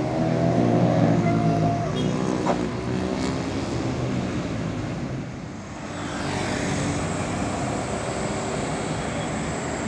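Tour bus's diesel engine pulling away, its note rising over the first two seconds, then steady road traffic, with another bus coming closer from about six seconds in, bringing a thin high whine.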